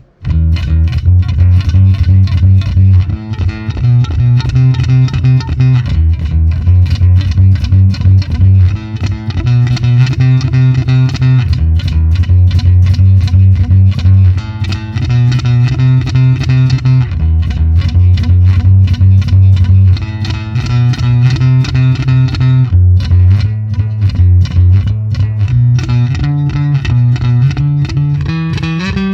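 Warwick Vampyre SN-5 five-string electric bass played through a Neural DSP Quad Cortex amp modeler: a repeating riff of plucked low notes, with a short climb up in pitch near the end.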